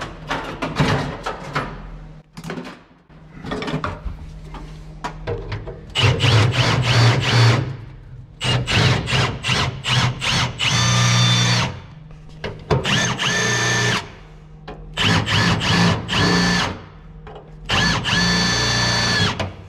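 Cordless drill boring through sheet steel in several bursts of a couple of seconds each, the motor whining as the bit cuts. It is opening up small holes in the new metal for the spot welds that tie the heater channel to the cross member.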